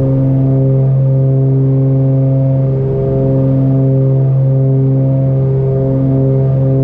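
Cessna 414A's twin turbocharged Continental six-cylinder engines and propellers droning steadily in flight, heard inside the cockpit. The drone wavers in a slow, regular throb, the sign of the two engines running slightly out of sync.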